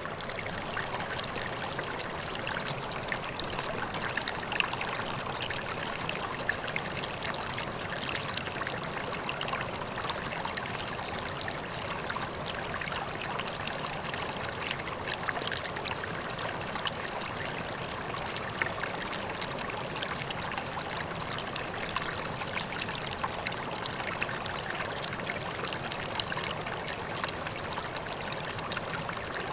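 Koi pond water trickling and splashing steadily, with many small splashes.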